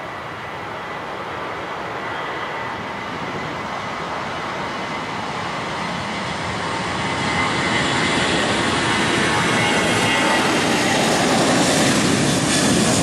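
Jet engines of a Southwest Boeing 737-800 (CFM56-7B turbofans) running, a steady roar with a faint whine that grows steadily louder.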